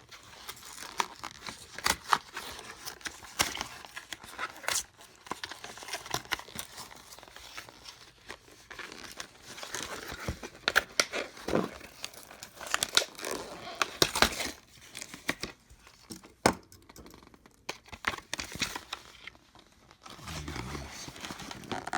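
Packaging being crinkled, torn and pried apart by hand to free the utensils, a string of irregular crackles and sharp snaps.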